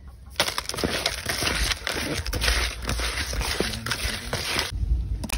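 Coarse salt and chunks of eel being rubbed and scrubbed together by hand in a plastic basin: a gritty, crunching scrubbing that starts about half a second in and stops shortly before the end. The salt scour strips the slime off the eel skin.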